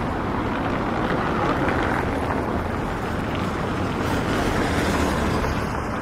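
City street traffic: a steady rumble of passing vehicles.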